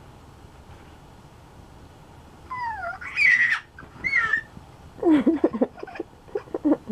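A toddler's high-pitched squeals, sliding up and down, start a couple of seconds in, followed about five seconds in by a run of short choppy giggles.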